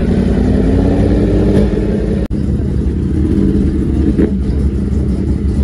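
Vehicle engines running, a steady low rumble, with one engine note rising slowly over the first two seconds. The sound cuts out abruptly for an instant about two seconds in.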